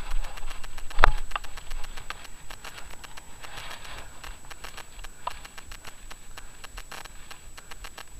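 Mountain bike rolling to a stop on a rough gravel car park: tyre crunch and small rattling clicks, with one sharp knock about a second in. Fainter clicking and handling noise follow as the bike stands still.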